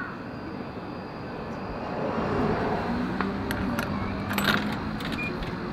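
Coins pushed one by one into the coin slot of a Fuji Electric vending machine, a few short metallic clinks in the second half, over street traffic noise that swells about halfway through.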